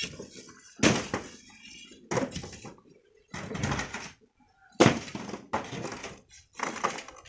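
Steel shovels scraping into gritty volcanic sand and stones, with stones clattering against a steel wheelbarrow, in about six separate strokes roughly a second apart.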